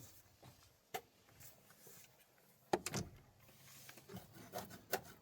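Quiet stretch with a few scattered faint clicks and knocks of hand tools on metal car parts: a single click about a second in, a short cluster of knocks around three seconds, and several light ticks near the end.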